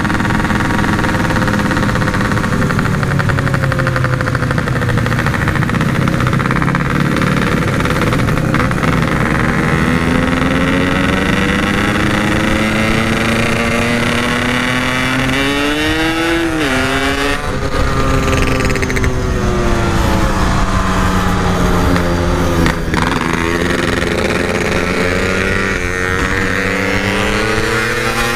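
Yamaha RX-King two-stroke single-cylinder motorcycle being ridden through its gears, fitted with a stock-style packed exhaust. The engine note climbs steadily in pitch, drops sharply at a gear change about 17 seconds in, and drops again near the end before climbing once more.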